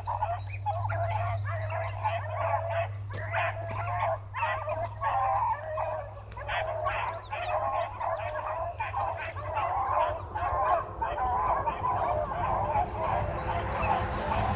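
A pack of beagles baying together, many voices overlapping without a break, as hounds in full cry on a scent trail.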